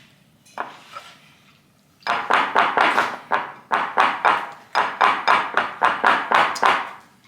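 Pancake batter being beaten by hand in a bowl: a single knock, then from about two seconds in quick, rhythmic stirring strokes, about three or four a second, to get the lumps out.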